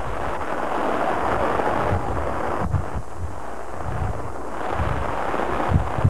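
Wind buffeting a camcorder microphone: a steady rushing hiss broken by irregular low rumbling thumps.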